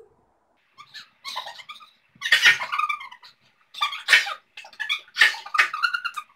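Women sneezing again and again, a string of sharp sneezes about one a second, the loudest about two and a half seconds in, brought on by sniffing sneezing powder.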